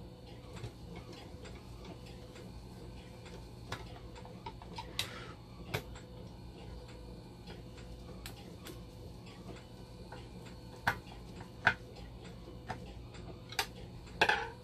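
A long metal screwdriver working the screws of a dialysis blood pump's DC motor mount: scattered small clicks and ticks of the tip and screws, a few sharper than the rest, over a steady low hum. Near the end comes a louder clatter as the screwdriver is pulled out of the housing.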